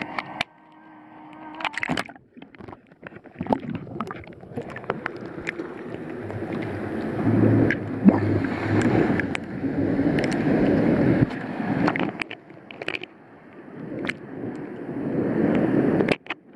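Small sea waves lapping and washing over a waterproof camera held at the water's surface, coming in irregular surges that swell and drop away suddenly, with scattered sharp clicks of water hitting the housing.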